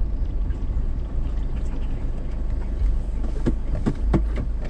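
A vehicle driving on a bush road: a steady low rumble of road and wind noise, with a few short knocks and rattles from about three and a half to four seconds in.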